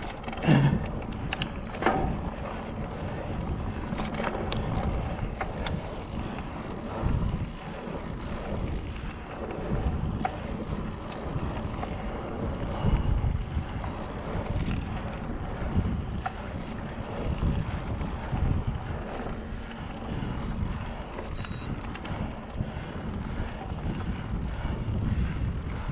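Wind buffeting the microphone while a mountain bike is ridden, a steady rumbling noise that swells in irregular gusts, with a few sharp knocks and rattles in the first few seconds.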